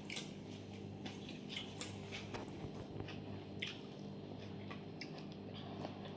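A person chewing a mouthful of mixed fried rice and chili chicken: a run of short, irregular wet mouth clicks and smacks, over a steady low hum.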